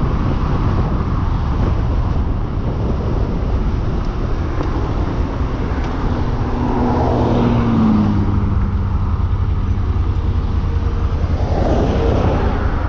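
Wind rushing over a camera microphone on a motorcycle riding at road speed, with the engine's steady drone underneath. A faint tone drops slightly in pitch about seven seconds in.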